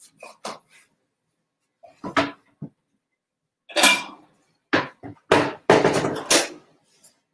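Dishes and utensils being handled in a kitchen: a few separate knocks, then a run of clinks and knocks about halfway through, some with a short ring.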